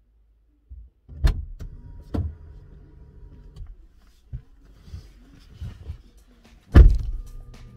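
SsangYong Rexton driver's door opening with a sharp knock and the driver climbing in, while the electric power seat motor hums steadily for about two seconds. Near the end the door shuts with a heavy thud, the loudest sound here, and the seat motor starts humming again as the memory seat function moves the seat into position.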